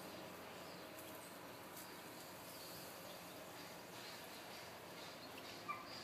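Faint outdoor background hiss with a few soft, high chirps, and one short, louder chirp-like call near the end.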